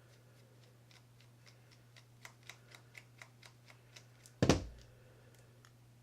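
A run of small, light clicks, about four a second, from a screwdriver backing out the small screws of a baitcasting reel's side plate, then a single loud knock about four and a half seconds in.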